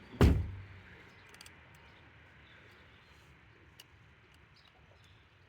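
A single sharp thump about a quarter second in, then a quiet background with a few faint scattered clicks.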